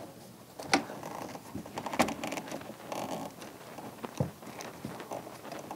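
A tight screw being backed out of the side of a window air conditioner with a hand screwdriver: light scraping and creaking with a few sharp clicks.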